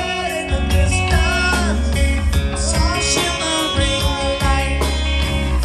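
Rock music from a live band: electric guitars over bass and drums.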